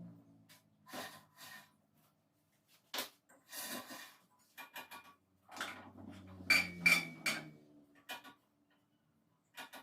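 Irregular metallic clinks, knocks and rubbing from bandsaw parts and tools being handled, with two ringing metal clinks about seven seconds in. No motor is running.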